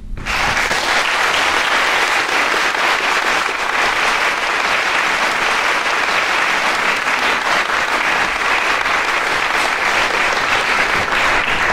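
Audience applauding, breaking out abruptly and holding steady.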